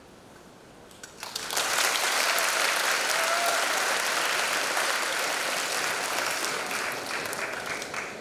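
Audience applause breaking out about a second in, quickly reaching full strength and tapering off near the end.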